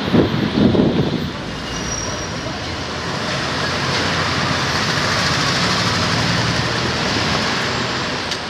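Street traffic noise, with a passing vehicle swelling to its loudest about halfway through and easing off near the end. A few low rumbling thumps come in the first second.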